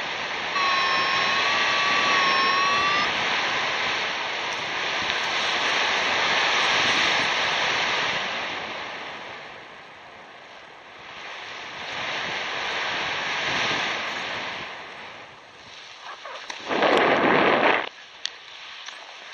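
Wind rushing over the microphone of a descending paraglider, swelling and fading, with a wavering whistle-like tone for about two seconds near the start. Near the end, a short loud rush of noise comes as the pilot touches down on the grass.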